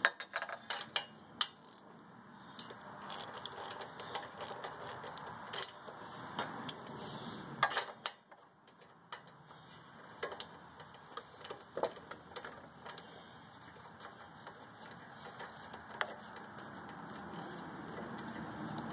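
Scattered light metallic clicks of a ratchet and spark plug socket as a spark plug is loosened and drawn out of a Kohler Courage engine, with a cluster of quick clicks in the first second or two and sporadic clinks after, over a low steady hiss.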